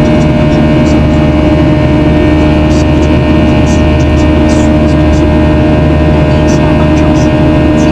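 Cabin noise inside a Boeing 737-800 with its CFM56-7B jet engines at high thrust: a loud, steady rush with a steady whine through it and faint light rattles.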